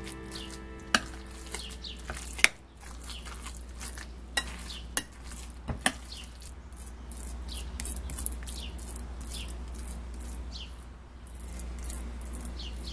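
A utensil stirring and mashing wet spring roll filling of ground meat, chopped vegetables and glass noodles in a glass mixing bowl, with several sharp clicks against the glass, the loudest about two and a half seconds in. Birds chirp in the background throughout.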